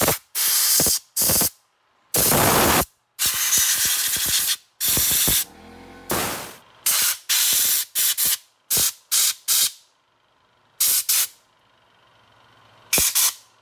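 Compressed-air blow gun firing a rapid series of short blasts of varying length, the longest over a second, blowing loose debris and plastic bits out of an opened slide projector's mechanism.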